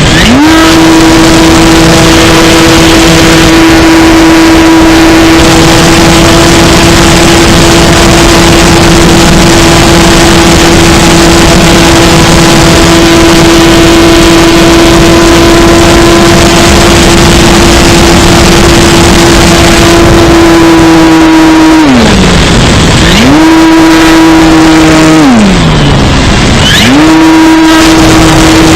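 Electric RC model plane's motor and propeller running at a steady, loud whine. Twice near the end the pitch glides down and climbs back up as the throttle is cut and reopened.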